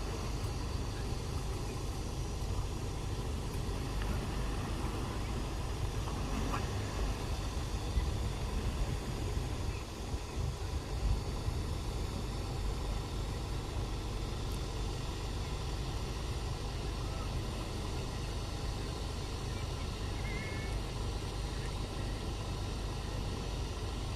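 A vehicle engine running steadily, a low rumble with no revving.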